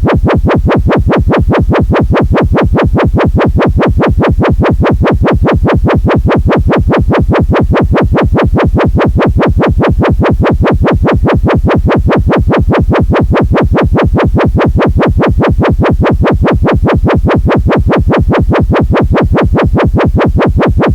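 Synthesized intruder alarm: a loud electronic buzzing tone pulsing rapidly and evenly, about four to five pulses a second.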